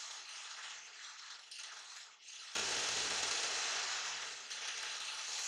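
Steel knife blade pressed against a spinning abrasive wheel on a motor-driven shaft: a steady hissing grind. It fades about two seconds in and comes back suddenly louder about half-way through.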